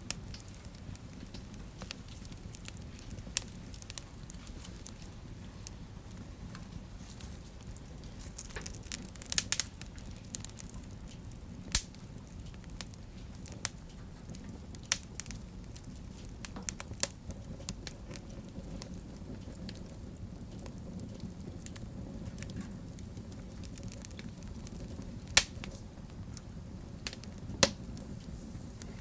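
Wood fire burning in a fireplace: a steady low rumble of flames with scattered sharp crackles and pops, a handful of them louder than the rest.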